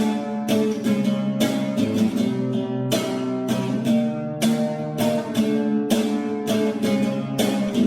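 Acoustic guitar strumming chords in a steady rhythm, the introduction of a song.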